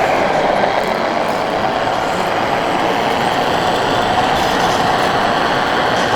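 A 1/14-scale radio-controlled model machine running, a steady continuous mechanical whir.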